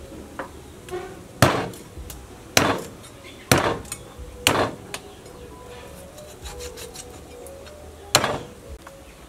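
Heavy cleaver chopping through cow leg meat and bone on a chopping board: five hard chops, four in a row about a second apart and one more near the end, with a couple of lighter knocks at the start.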